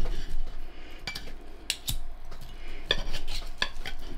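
Knife and fork clicking and scraping against a plate, irregularly, while a piece of smoked pork loin (kassler) is cut.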